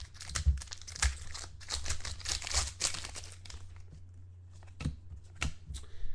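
Crinkling and tearing of a trading card pack's wrapper, dense for the first few seconds, then a few scattered clicks and rustles as the cards are handled.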